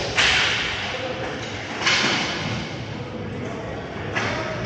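Roller hockey play in an arena: three sharp knocks, just after the start, about two seconds in and near the end, each ringing on in the hall's echo.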